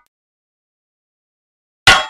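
Blacksmith's hammer striking a blade on an anvil: a single sharp, ringing clang near the end, after the last of the previous blow's ring dies away at the start.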